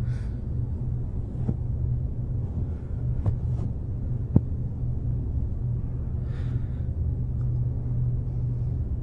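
Steady low hum and background noise of an open telephone line with no answer from the other end, broken by two faint short clicks a little after three and four seconds in.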